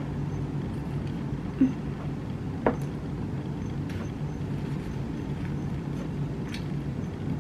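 A few faint clicks of chopsticks against a ceramic rice bowl while eating, over a steady low hum.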